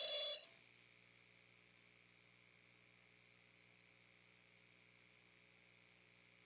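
Loud, steady high-pitched squeal of several tones from the chamber's sound system, cutting off suddenly under a second in and followed by dead silence. It is the kind of whine a PA makes while its microphone is being handled on the stand.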